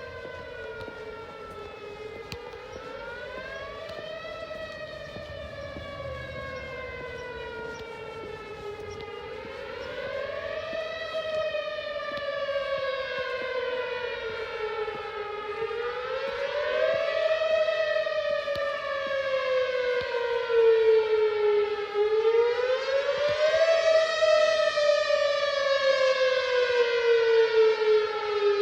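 Whelen Vortex R1 tornado siren sounding its wail at full power: the pitch climbs quickly, then falls slowly, about every six and a half seconds. It grows louder toward the end and echoes off nearby buildings and hollows.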